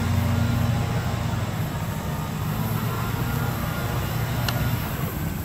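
NJ Transit commuter train running along the tracks, a steady low rumble. A brief high squeal comes near the end.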